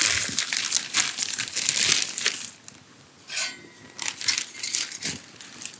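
A plastic bag of wood pellets crinkling and rustling as it is handled and opened. The crinkling is dense for the first couple of seconds, then comes in short bursts.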